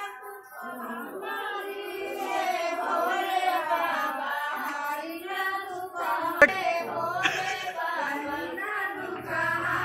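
Female voices singing a song together without a break, with a sharp click about six and a half seconds in.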